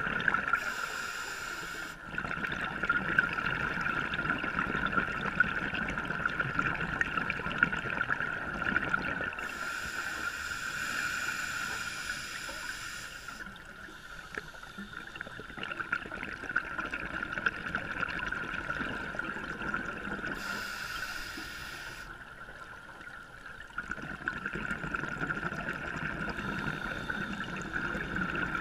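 Underwater sound of scuba diving: a steady watery hiss, broken by bursts of bubbling as a diver's regulator exhausts, about three times, roughly ten seconds apart.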